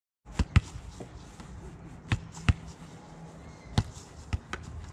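A football being kicked against a brick wall and rebounding: several sharp thuds of foot and wall, some coming in quick pairs about a fifth to a third of a second apart.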